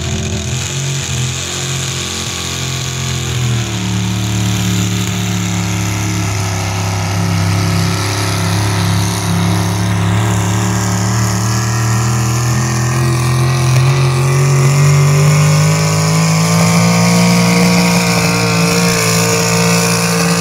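Gasoline engine of an altered-stock 4x4 pickup running hard at high revs while pulling a weight-transfer sled. Its pitch drops once about three and a half seconds in, then climbs slowly toward the end.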